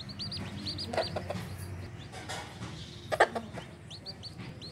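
Newborn chicks peeping from under a brooding hen, high-pitched peeps in quick runs at the start and again near the end. The hen gives a few low clucks around a second in and one louder cluck about three seconds in.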